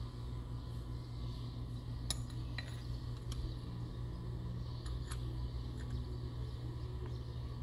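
A handful of light metallic clinks as engine bearing shells and a connecting-rod cap are handled at the crankshaft, about two seconds in and again around five seconds, over a steady low hum.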